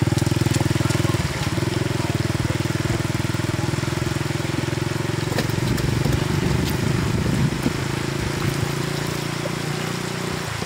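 A small engine running steadily with a low, rapidly pulsing hum.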